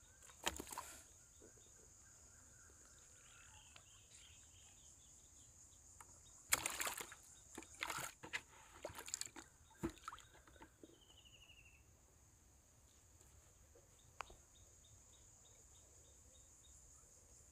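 Water splashing and sloshing in a plastic bucket in short bursts, once shortly after the start and then in a cluster in the middle, as a freshly caught fish is put into the water and handled. Under it runs a steady high insect drone, with a few faint bird chirps.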